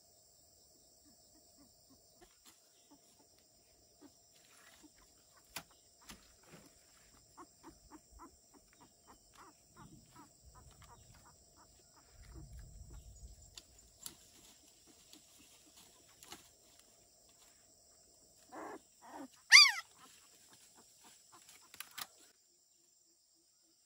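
A dog's short, loud yelp falling sharply in pitch, near the end, right after two shorter lower cries. Softer scattered sounds come before it, over a steady high hum of insects.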